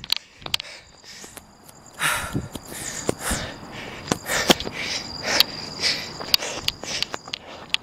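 A sprinter breathing hard and fast to catch his breath just after a sprint, the heavy breaths starting about two seconds in. A steady high chirring of crickets runs underneath, with scattered clicks.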